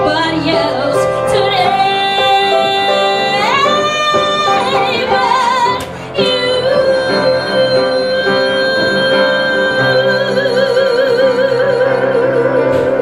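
A woman singing with piano accompaniment. About a third of the way in her note slides upward; after a short break she holds one long note through the rest, its vibrato widening near the end.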